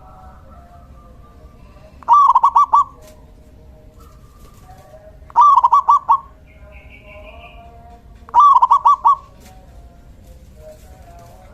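Male zebra dove (perkutut) singing: three loud phrases of quick, rapid cooing notes, a few seconds apart. Fainter bird calls carry on behind them.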